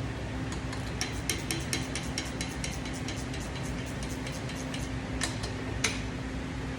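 Hand ratchet clicking in a quick, slightly uneven run of strokes as a bolt is worked on the engine, thinning out to two sharper clicks near the end, over a steady low hum.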